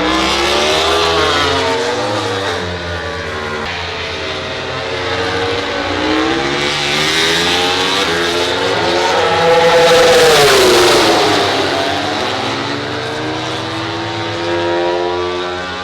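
MotoGP prototype racing motorcycles' 1000 cc four-cylinder engines revving hard, several bikes at once, their pitch climbing and falling through gear changes. The loudest bike passes close about ten seconds in, its pitch rising and then dropping as it goes by.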